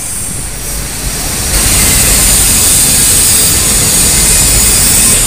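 Loud, steady din of road traffic: a hiss over a low rumble, growing louder about a second and a half in.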